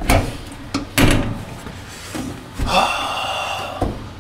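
A few sharp knocks and thuds: one at the start, the loudest about a second in, and another near the end, with a rustling hiss lasting about a second just before the last one.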